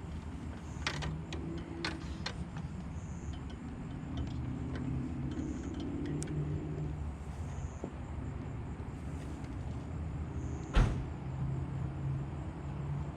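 Light clicks and taps of parts being handled, with one sharp knock about eleven seconds in, over a steady low hum.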